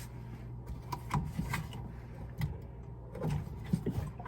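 Front-loading washing machine running with its door off, a steady low hum, while hands knock and click against its parts as someone searches for a leak.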